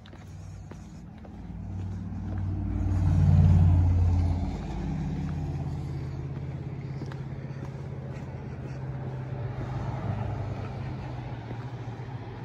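Road vehicle passing on the highway: its engine hum builds to the loudest point about three and a half seconds in, then settles into a steady drone.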